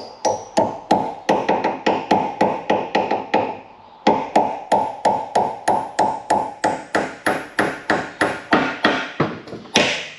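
A hammer steadily tapping an oversize hinge pin into a Hillman Imp door hinge, about three ringing metallic blows a second, with a brief pause about four seconds in and one harder blow near the end.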